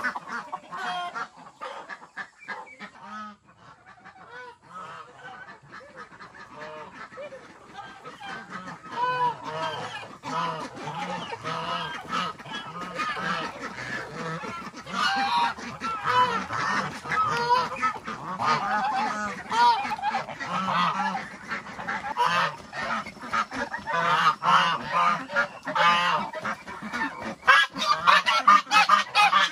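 A flock of farm poultry calling: many short, overlapping calls, sparse at first, then busier and louder from about a third of the way in.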